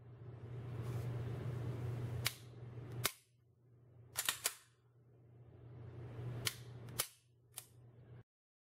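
Sig Sauer P229 fitted with a short reset trigger (SRT) kit being dry-fired and its trigger reset tested: sharp metallic clicks of the action, about eight in all, some single and some in quick clusters, over the rustle of the pistol being handled.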